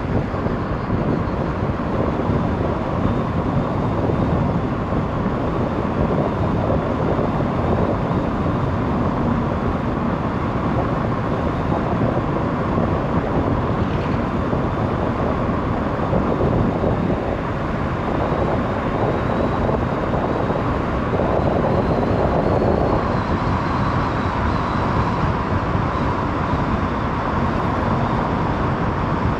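Car driving along a motorway: steady tyre and road noise with engine hum, unchanging in level.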